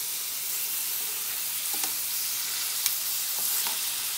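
Lamb chops sizzling steadily in butter in a frying pan, with a few brief clicks of metal tongs against the pan as the chops are moved.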